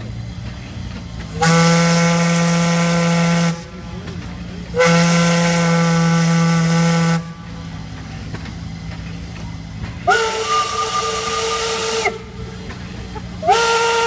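Steam whistle blowing four blasts of about two seconds each, with steam hissing in the gaps between them. The first two blasts have a deeper note under them; the last two swoop up in pitch as they start.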